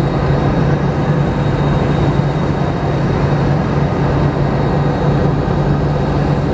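Steady cabin noise over the wing of an Airbus A321-211 during descent: its CFM56-5B turbofan engines droning with a steady low hum under the rush of airflow.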